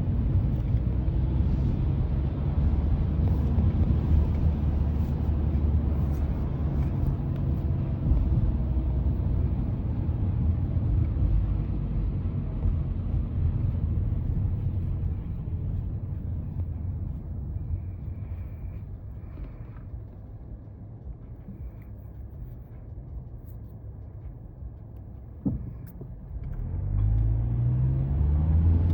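Mazda 3 driving: a steady low rumble of engine and road noise that dies down to a quiet low hum as the car slows, a single click a few seconds before the end, then the engine note rising as the car accelerates again.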